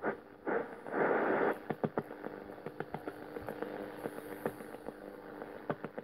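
ITT Schaub-Lorenz Clock Radio 101 giving static and hiss with faint steady hums as it is tuned across the shortwave band without finding a station. A louder rush of noise comes about a second in, and many small clicks come from the tuning wheel and buttons being handled.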